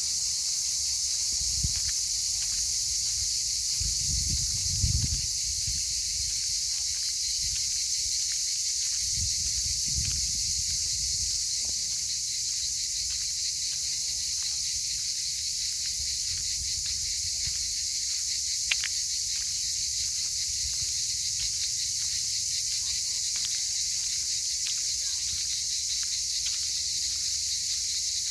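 A steady, high-pitched insect chorus with a faint regular pulsing of about two pulses a second. Low rumbles come and go in the first few seconds.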